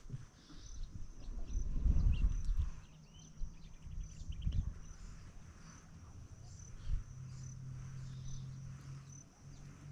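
Insect chirping, a short high chirp repeating about every three-quarters of a second, over low rumbles and knocks.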